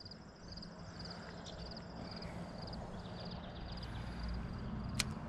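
A motor vehicle approaching on the road, its engine a low steady hum that grows slowly louder. A single sharp click near the end.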